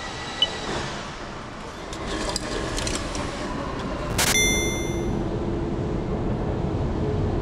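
Subway station ambience with a sharp electronic ticket-gate beep about four seconds in, a short cluster of high tones that rings on for about a second.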